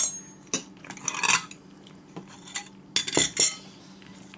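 Cutlery clinking and scraping against plates and bowls during a meal, in scattered sharp clicks, with the loudest clatter about three seconds in.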